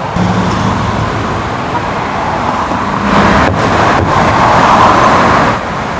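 Space Shuttle Discovery's double sonic boom: about three seconds in, two booms about half a second apart, and the sound swells for a couple of seconds before falling back. Steady traffic noise runs underneath.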